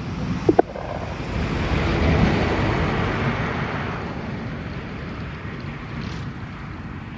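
A passing vehicle: a broad rushing noise that swells to a peak about two seconds in and then slowly fades. A brief sharp click-like sound comes about half a second in.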